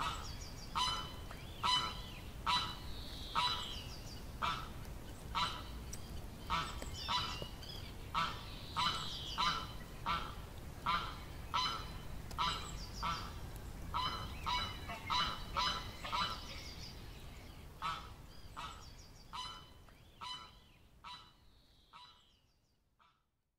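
Waterfowl calling: a long run of short honking calls, about one or two a second, fading out over the last several seconds.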